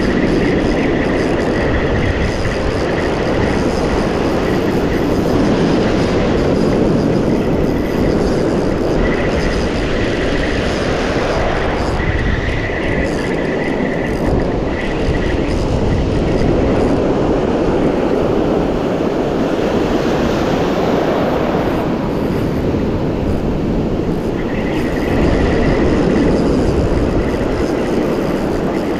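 Wind buffeting the microphone over breaking surf: a steady, loud rumble and hiss, with a thin high tone that comes and goes several times.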